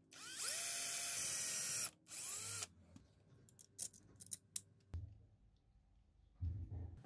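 Cordless drill spinning up with a rising whine and drilling a small hole through an aluminium bracket: one burst of about two seconds, then a short second burst. Light metal clicks and taps follow as small parts are handled.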